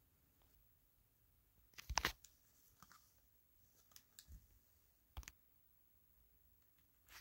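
Faint handling clicks and taps as a cardboard knife box is opened and the knife and its sheath are laid out, with the sharpest cluster about two seconds in and a few lighter clicks after.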